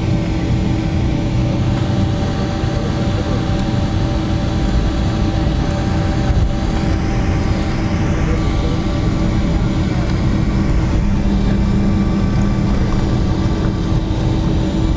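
Cabin noise of a Boeing 737-200 taxiing after landing: the Pratt & Whitney JT8D engines give a steady low rumble with a hum of several steady tones, and a lower tone joins about two thirds of the way through.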